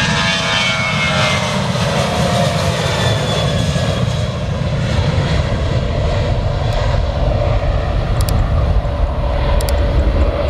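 Airliner engines passing close by: a loud, steady low rumble, with an engine whine that falls in pitch over the first two seconds or so.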